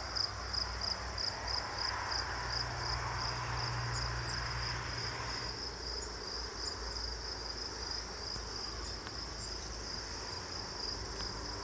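Crickets chirping at dusk: a steady, even run of high chirps, with a faint low rumble beneath.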